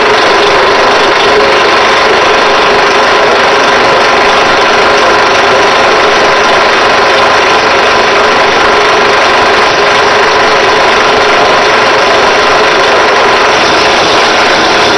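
Drill press running steadily with a bronze valve guide spinning in its chuck, an abrasive strip held against it by hand to sand the oversize guide down to size.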